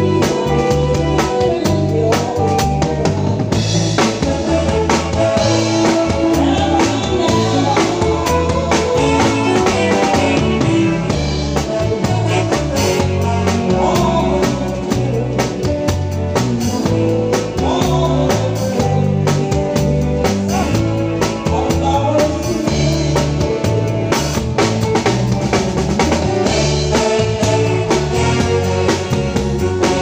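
A live band playing loud amplified music, with a drum kit keeping a steady beat over moving bass notes.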